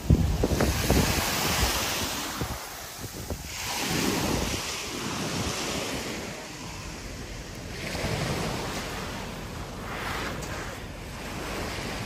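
Small sea waves washing in and out at the water's edge, swelling every few seconds, with wind buffeting the microphone.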